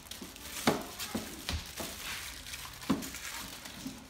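Aluminium foil crinkling as a foil-covered foil tray is pressed and handled, with several sharp crackles and knocks; the loudest come about two-thirds of a second in and again near three seconds.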